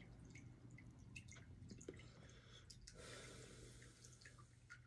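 Near silence: faint room tone with a low steady hum and scattered faint ticks.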